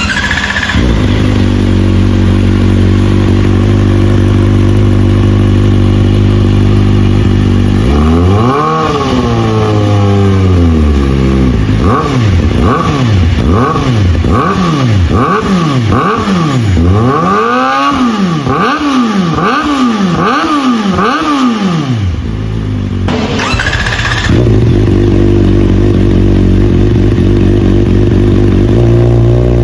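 Kawasaki ZX-4R inline-four engine idling steadily, then revved once. It is then blipped through about nine quick throttle revs in a row before it drops back to idle, with a brief burst of noise shortly after.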